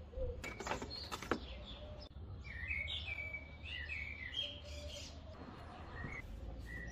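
Birds chirping, a run of short quick calls, with a few sharp clicks about a second in and a steady low rumble underneath.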